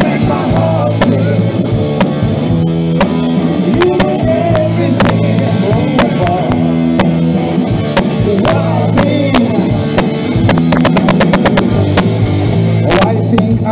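Live band playing an instrumental passage with a steady beat and held bass notes. Near the end, a rapid run of drum hits leads back into the song.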